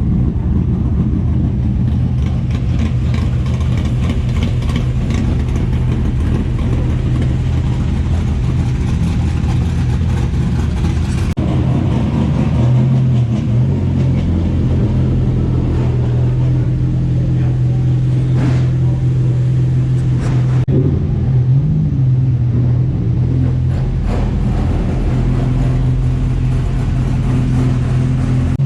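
Motor vehicle engine running with a steady low drone. The sound shifts abruptly about eleven and again about twenty-one seconds in.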